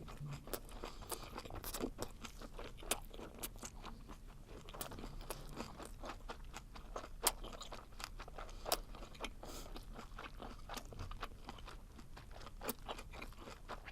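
A person chewing blanched webfoot octopus close to the microphone: a steady run of irregular wet clicks and smacks, with a few sharper ones near the middle.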